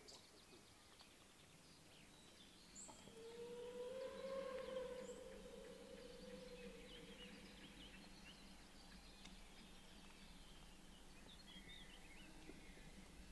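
Steam whistle of class 01 steam locomotive 01 1104 giving one long, distant blast about three seconds in, lasting about three seconds, its pitch lifting slightly and then sagging. Small birds chirp around it.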